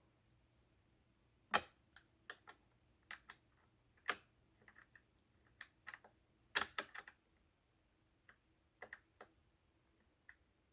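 Scattered, irregular light clicks and taps from hand work on a chair headrest's screws with an Allen wrench, with a small cluster of quick clicks about two-thirds of the way through.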